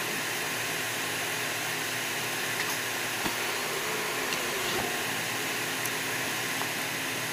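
Steady mechanical hum and hiss inside a stopped off-road vehicle's cabin, its engine idling and air-conditioning fan blowing, with a couple of faint ticks.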